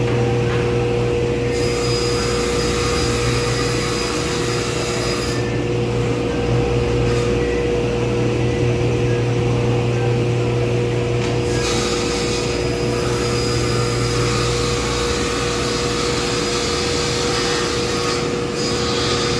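Electric woodworking saw running with a steady motor hum, making two long cuts through MDF sheet, the first starting about a second and a half in and the second about halfway through.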